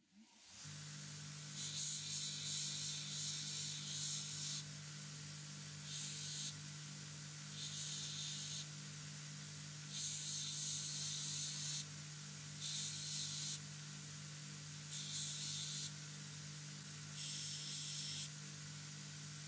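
Belt grinder running with a steady motor hum while a steel hatchet head is pressed to the moving abrasive belt in about seven passes of one to three seconds each. Each pass gives a hissing grind that stops when the head is lifted off.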